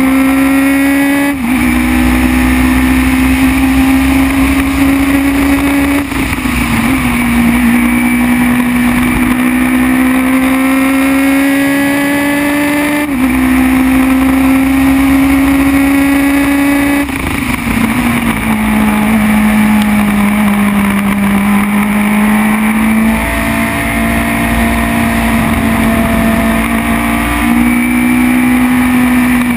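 Formula BMW race car's 1.2-litre four-cylinder engine at full throttle, climbing in pitch and dropping sharply at each upshift. About two-thirds through the pitch falls as the car slows for a corner, then it pulls again through the bend, over steady wind and tyre noise.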